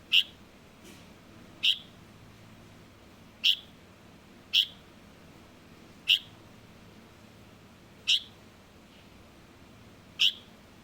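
Juvenile light-vented bulbul (Chinese bulbul) giving short, sharp single chirps, seven in all, spaced irregularly one to two seconds apart.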